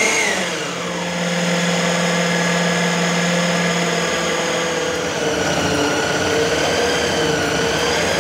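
Preethi Zodiac mixer grinder's motor running steadily with the dough-kneading blade fitted in its food processor jar, mixing wheat flour, oil and salt into chapati dough while water is poured in through the feed tube. The machine starts up just before, its pitch dipping in the first second and then holding steady.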